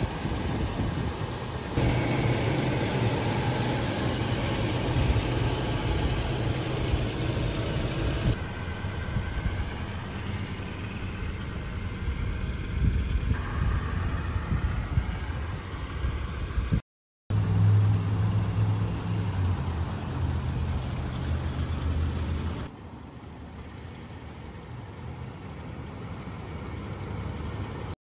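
A vehicle's engine and road noise in several short clips cut together, the sound changing abruptly at each cut. There is a brief dropout about 17 s in and a quieter stretch near the end.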